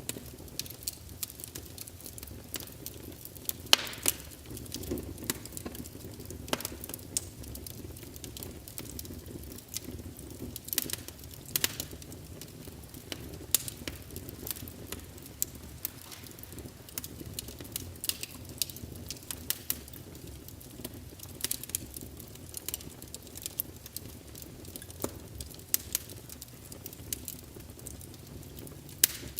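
Wood fire burning in a fireplace, crackling with a steady low rumble and frequent irregular sharp pops, a few of them much louder than the rest.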